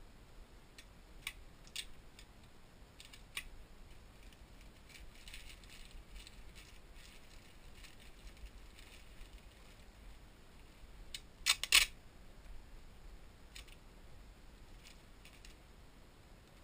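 Plastic poly mailer being handled, with soft rustling and scattered small clicks, and one brief loud crackle of plastic about twelve seconds in.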